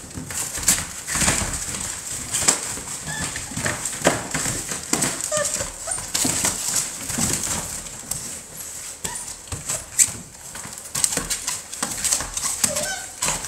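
A litter of six-week-old American Bully puppies playing and wrestling, with scratching and scuffling in wood shavings on a plastic kiddie pool and a few short puppy yips.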